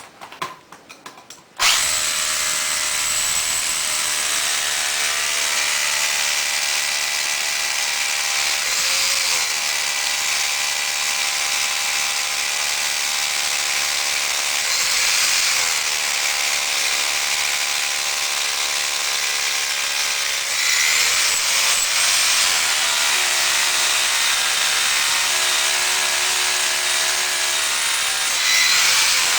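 Spline-drive (SDS) hammer drill boring into a concrete floor slab: a few knocks, then the drill starts about two seconds in and runs steadily, a motor whine over a dense hammering rattle, getting a little louder about two-thirds of the way through and again near the end.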